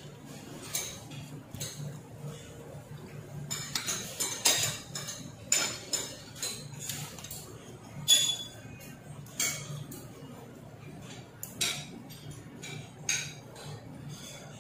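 Knife and fork clinking and scraping on a plate while sawing at a tough steak, in irregular clicks, the loudest about eight seconds in. A low steady hum runs underneath.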